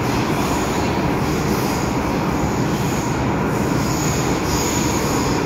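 MTR M-Train running through a tunnel, heard from inside the passenger car: a steady rumble of wheels on rail, with high-pitched wheel squeal coming and going several times.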